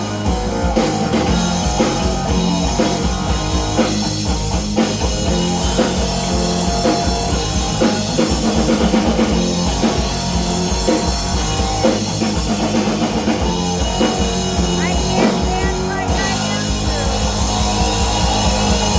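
Rock band playing an instrumental passage with no singing, led by a drum kit keeping a steady beat and electric guitar.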